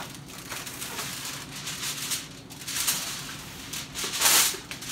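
Aluminum foil crinkling and rustling in several bursts as a sheet is pulled off the roll, the loudest burst about four seconds in as it is torn from the box.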